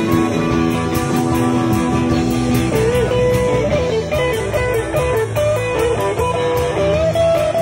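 Live blues-rock band with drums and bass: a harmonica holds a chord for the first few seconds, then an electric guitar takes over with a bending lead line.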